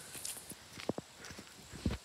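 Bare feet stepping on an asphalt road, a few short, uneven footfall clicks, the clearest about a second in and near the end.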